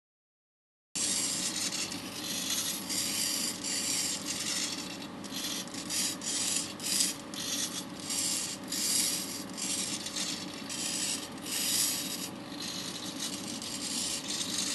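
Servo-driven homemade wooden laser turret moving: small servos whir and grind in short uneven spurts over a steady hum, with wooden parts rubbing. It starts suddenly about a second in.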